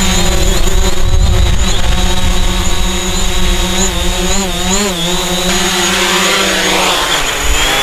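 DJI Mavic quadcopter hovering low, its propellers giving a steady whine of several tones together. The pitch wavers briefly about halfway through as the drone adjusts, over a low rumble.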